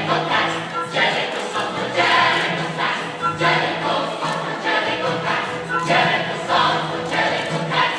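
Choral music: a group of voices singing together in repeated phrases.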